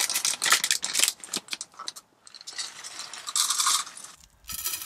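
Plastic bag of rolled oats crinkling as it is handled, then dry oats pouring out of the bag into a small metal pot with a rushing patter.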